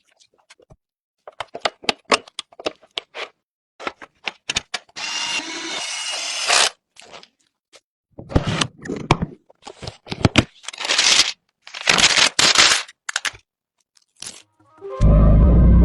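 Sharp clicks, snaps and scrapes of computer parts being handled and fitted, with a steady whirring noise for about two seconds, then more rustling and scraping. Music with guitar comes in near the end.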